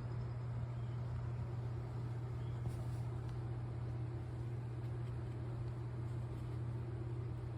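A steady low hum over a faint hiss, with no change in pitch or level.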